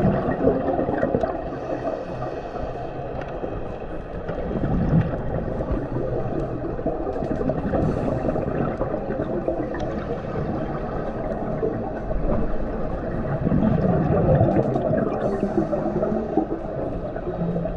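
Muffled underwater bubbling and gurgling from scuba divers' exhaled air, swelling about five seconds in and again near the end.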